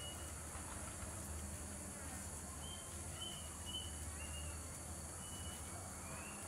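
Steady high buzzing of insects, with a handful of short, high chirps partway through, the last one rising.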